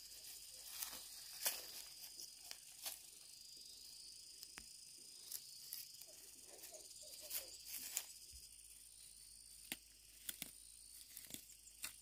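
Weeds being pulled up by hand from soil: faint scattered snaps and rustles as stems, leaves and roots tear free.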